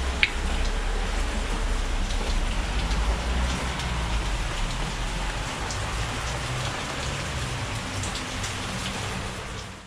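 Steady rain falling and splashing on wet ground, foliage and a tarp-covered boat frame, with scattered single drips.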